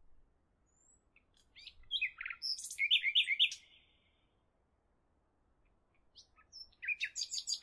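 Birds chirping: rapid strings of short, high notes about a second and a half in and again near the end, with a quiet gap between.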